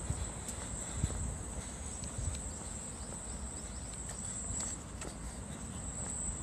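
A steady, high-pitched chorus of summer insects, with low rumble and a couple of dull thumps, one at the start and one about a second in.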